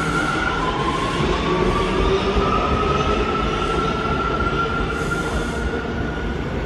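New York City subway train running along the platform, with wheel squeal and a high tone that slowly rises in pitch over the first few seconds.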